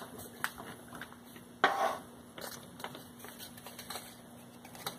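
Sheet of folded paper and a glue stick handled on a tabletop: light taps and soft paper rustling, with one louder rustle about a second and a half in.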